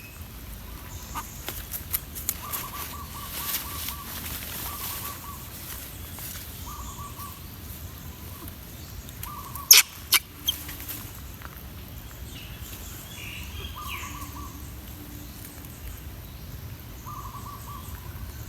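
An animal calling: short trilled notes, each under a second, repeated about seven times at uneven gaps over a steady low rumble. Three sharp knocks come about ten seconds in and are the loudest sounds.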